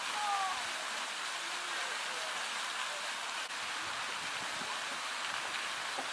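Steady rushing, hissing noise of running water.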